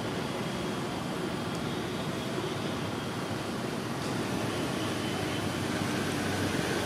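Steady outdoor background noise: a continuous even hiss over a low rumble, growing slightly louder about halfway through.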